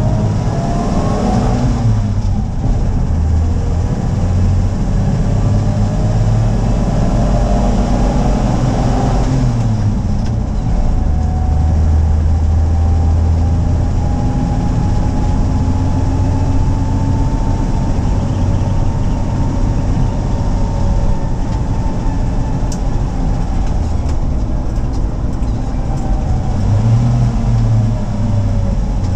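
1970 Toyota FJ40 Land Cruiser's inline-six engine heard from inside the cabin while driving. Its note climbs and drops back about two seconds in, climbs again and drops near ten seconds in as it shifts up, then settles into a steady cruise with a faint whine rising and falling.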